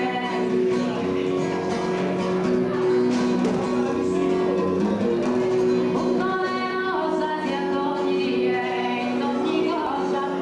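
A woman singing a song into a microphone, accompanied by an acoustic guitar, with long held notes in her melody.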